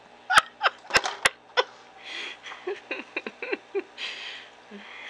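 A quick run of five sharp clicks or smacks in the first second and a half, followed by softer short sounds and two breathy swells.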